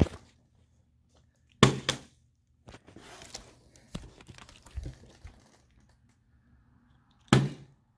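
Plastic water bottle being flipped onto a wooden tabletop: a loud knock as it lands about two seconds in and another near the end, with rustling of the thin plastic being handled between them.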